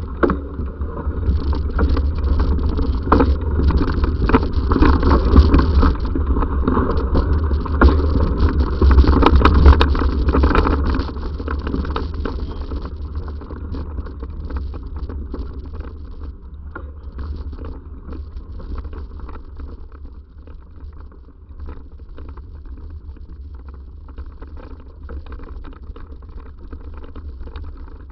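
Bicycle ridden over a rough trail: a steady low rumble of wind on the microphone with many scattered clicks and rattles from the bike. It is loud for about the first eleven seconds, then quieter.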